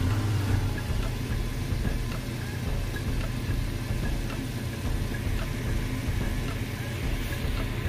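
Vegetables and udon noodles crackling faintly in a hot stainless steel pan, over a steady low hum.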